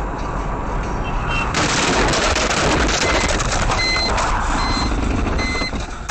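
A car collision: a sudden loud, rough crashing noise about a second and a half in that stays harsh and noisy. From about halfway through, a high electronic beep repeats a little faster than once a second.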